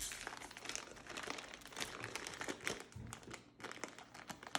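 Packaging being handled and pulled open around a compressed foam dog bed, crinkling and crackling in quick, irregular bursts.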